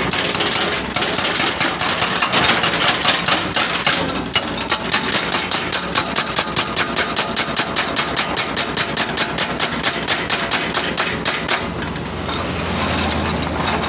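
Excavator-mounted hydraulic rock breaker pounding rock: its chisel strikes irregularly at first, then settles into a steady rapid run of about four blows a second and stops near the end. The Hitachi 130 excavator's diesel engine runs underneath.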